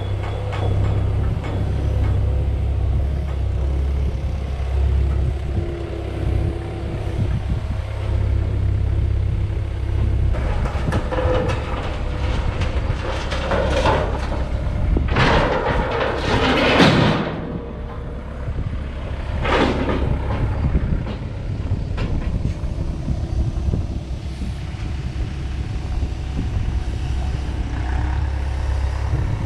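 Excavator's diesel engine running steadily with a low rumble. Two louder, noisy bursts stand out about halfway through, the first lasting a couple of seconds.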